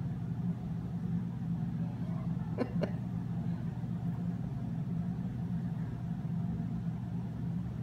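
A steady low hum with no words, broken by two short sharp sounds close together about two and a half seconds in.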